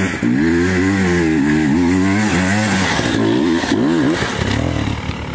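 Dirt bike engine revving hard under load as it climbs a dirt slope, the pitch rising and falling with the throttle, with a few quick blips about three to four seconds in. It eases off slightly near the end.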